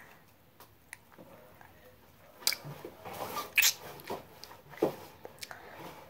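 Lips and mouth close to the microphone while dark lipstick is put on: a handful of short wet smacks and clicks, the loudest about two and a half and three and a half seconds in, between soft mouth noise.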